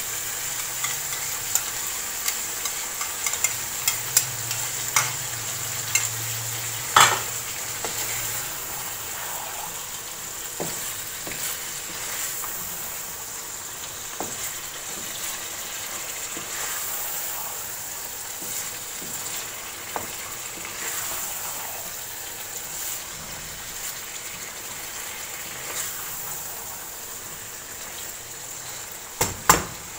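Minced meat and sliced potatoes sizzling in a non-stick pan as a wooden spatula stirs in freshly added yogurt, scraping and tapping against the pan. There is a sharp knock about seven seconds in and two more near the end.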